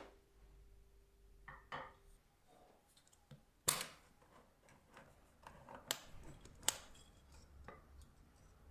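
Scattered sharp clicks and light taps of kitchen work; the loudest about four seconds in, two more near six and seven seconds in.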